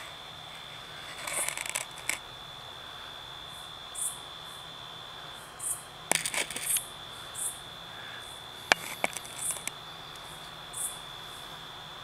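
Night insects: a steady high cricket trill that breaks off briefly about halfway, with higher short chirps repeating every second or so. Several clicks and rustles of handling come and go over it.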